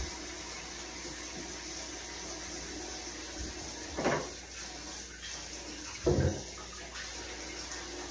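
Bathroom sink tap running steadily, water falling into the basin, with two short knocks about four and six seconds in.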